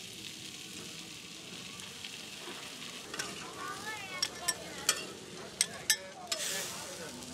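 Corn and shredded cheese sizzling on a hot flat-top griddle. From about three seconds in, a metal spatula clanks sharply against the griddle several times as the pile is scooped and turned.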